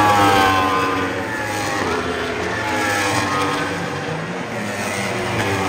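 1000 cc superstock racing motorcycles passing on track, each engine's pitch falling as it goes by.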